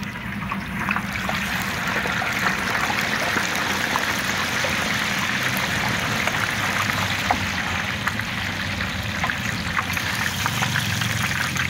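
Pork pieces sizzling in hot fat in a large stainless steel pot, seared at high heat, a dense steady frying hiss dotted with many small crackles and pops. A low steady hum runs underneath.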